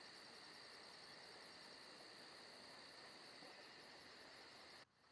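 Near silence: faint room tone with a steady high-pitched hiss, cutting to dead silence just before the end.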